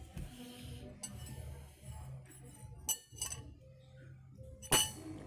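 Spoons clinking against bowls while eating meatball soup: about four sharp clinks, the loudest near the end, over a steady low hum.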